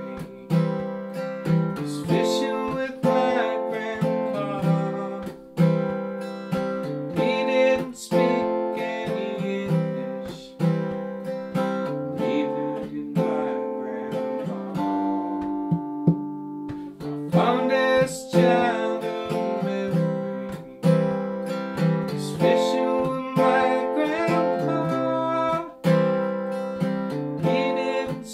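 Steel-string acoustic guitar, capoed, strummed in a steady rhythm, with a man singing along. About halfway through, the strumming eases to a held chord ringing for a couple of seconds before it picks up again.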